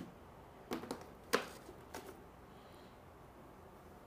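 A few short knocks and handling noises as a black carrying case is lifted out of its cardboard box and set down on a tiled floor, the sharpest knock a little over a second in.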